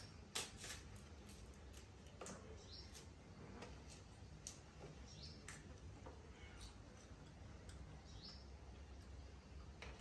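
Soft, sharp clicks and snaps of fresh lotus seeds being split and peeled by hand, about one a second and loudest near the start. Four short, high chirps come in between.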